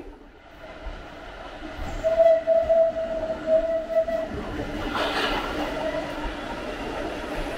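Subway train sounding, with a steady high note held for about two seconds starting two seconds in, then a brief burst of noise about five seconds in, followed by the train's steady running sound.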